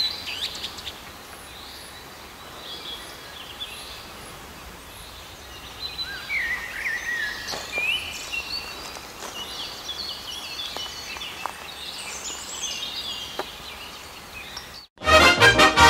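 Small birds singing and chirping over a steady open-air background hiss. Near the end it cuts out briefly, and loud brass-band music starts.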